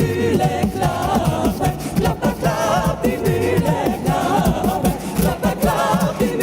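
A cappella vocal group singing in close harmony over a sung bass line, with a steady beat of vocal percussion.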